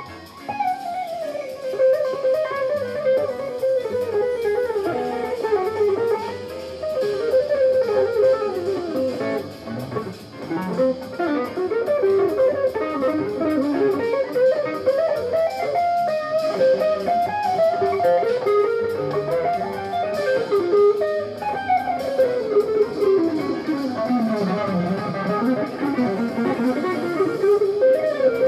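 Jazz fusion music led by an electric guitar playing fast melodic runs, with one long line that falls and climbs again about three-quarters of the way through.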